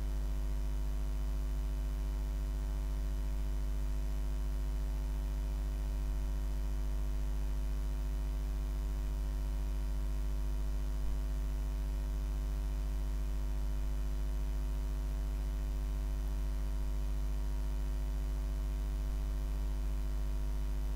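Steady electrical mains hum and buzz from the recording setup: a constant low drone with several fixed overtones above it and a faint hiss, with one brief small blip about eleven seconds in.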